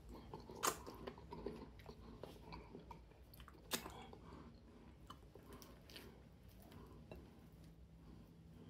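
A person chewing a mouthful of fufu with okra soup, with quiet, irregular wet mouth sounds and two sharp clicks, one under a second in and one near the middle.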